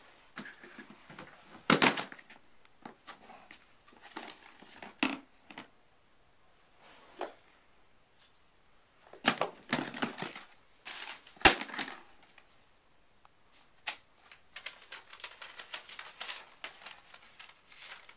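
Paper being handled: envelopes torn open and letter paper rustling and crinkling in irregular bursts, with a sharp tear or snap about eleven seconds in.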